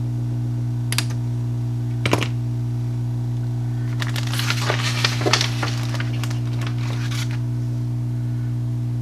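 Two sharp snips of wire cutters clipping capacitor leads, about one and two seconds in, then a few seconds of small clicks and rattling as parts and wires are handled. A steady low electrical hum runs under it all.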